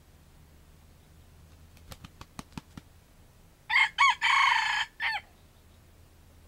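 Wild red junglefowl rooster crowing once, a short, clipped crow of about a second and a half in several linked parts, the last one brief. A quick run of about six sharp claps comes a second or so before it.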